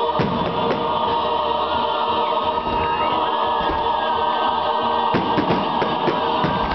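Choral music with long sustained sung chords, with sharp firework bangs cutting through it several times, more of them in the last second or two.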